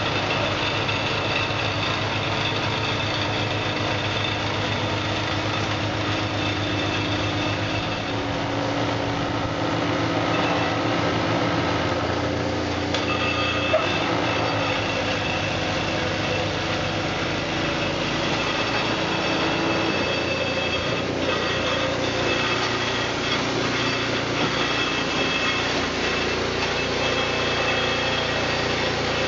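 Two-stage snowblower's small gas engine running steadily under load as the machine, fitted with an upgraded impeller kit, cuts through and throws wet snow. A single sharp click about halfway through.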